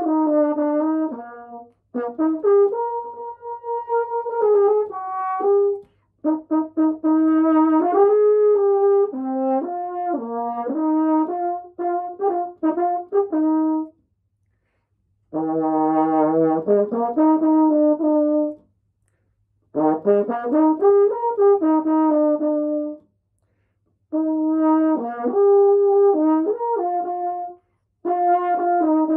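Holton 281 double French horn played in melodic phrases separated by short pauses for breath, one phrase starting on a low note and climbing. This is a play test of the horn after major repairs.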